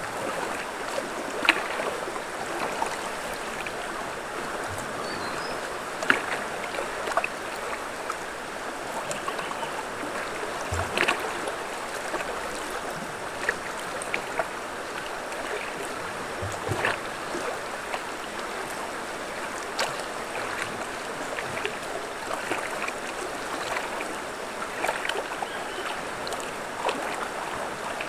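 River water flowing in a steady rush, with short sharp sounds breaking through every few seconds.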